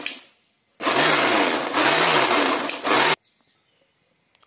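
Kitchen mixer grinder whipping eggs, lemon juice and oil into mayonnaise. It starts about a second in and runs in three short pulses with a rising-and-falling motor hum, then cuts off suddenly a little after three seconds in.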